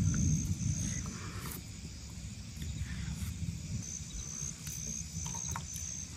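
Insect chirping in a run of short, high-pitched pulses, pausing for a couple of seconds about a second in, over a low rumble, with a few light clicks near the end.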